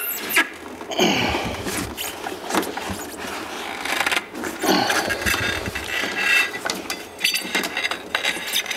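A rubber CVT drive belt being pulled up and worked off the clutch sheaves by hand: irregular scraping and rubbing with occasional knocks.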